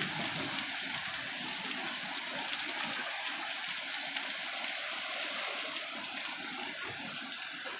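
Heavy rain pouring down steadily in a thunderstorm, an even hiss of water.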